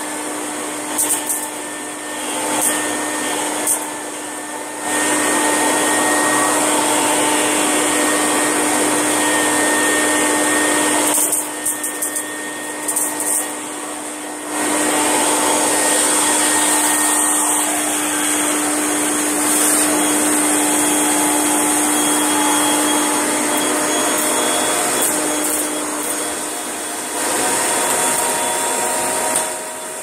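Kirby G7 Ultimate vacuum cleaner running with its hose and floor tool, a steady motor whine over rushing suction. The level rises and falls in long stretches as the tool is worked across a mat.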